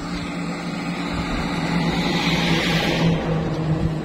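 Road vehicle noise: an engine runs with a steady low hum, while a passing vehicle's noise swells to a peak and drops away about three seconds in.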